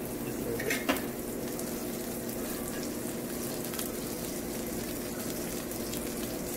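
Melted butter sizzling steadily in a frying pan around slices of bread toasting over a gas flame, with a steady low hum underneath. A couple of light clicks sound just under a second in.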